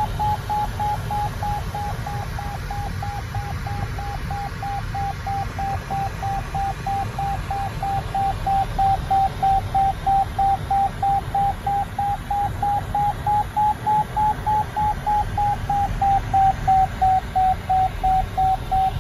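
Glider variometer giving its climb tone: a steady run of short beeps, about three a second, the pitch drifting slightly up and down, signalling that the glider is still climbing. A low rush of cockpit air noise runs underneath.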